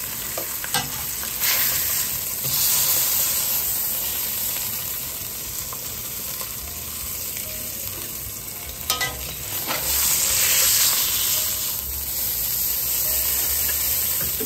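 Seared beef shanks and hot oil sizzling in a stainless steel pan as the meat is lifted out with metal tongs. The sizzle swells twice, and metal tongs click against the pan a few times.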